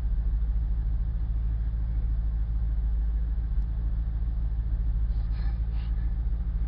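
Vehicle engine idling steadily, its sound deep and even with no revving.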